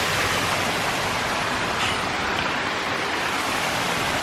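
Water rushing over a small waterfall: a steady, even rush of noise with no breaks.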